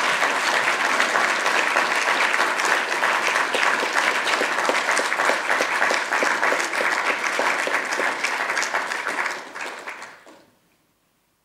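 Audience applauding, a dense spread of many hands clapping that dies away about ten seconds in.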